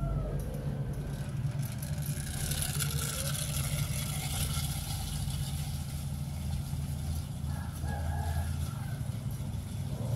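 Steady low rumble like a motor vehicle engine running nearby, with a rush of hiss about two to four seconds in and a faint short call near eight seconds.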